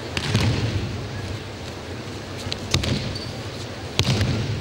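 Aikido breakfalls on tatami mats: three thuds of bodies landing after irimi-nage throws, one just after the start, one past the middle and one near the end, each ringing briefly in a large hall over a steady hum.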